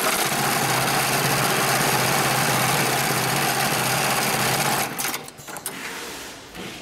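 Heavy-duty cylinder-bed programmable pattern sewing machine running at high speed, stitching a box-and-cross pattern through thick polypropylene webbing for a big-bag handle loop. The steady machine noise cuts off about five seconds in as the cycle ends, followed by a few lighter clicks.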